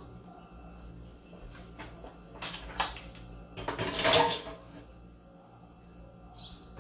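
Utensils and dishes clattering at a kitchen sink as a cutting board and knife are handled: a few sharp knocks, then a louder rattling clatter about four seconds in. A short high chirp sounds near the end.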